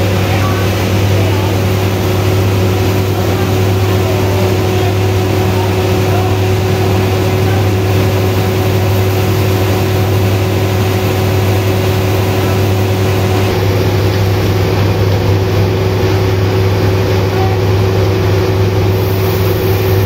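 Sawmill machinery running steadily: a loud, continuous drone with a constant hum that holds the same pitch throughout.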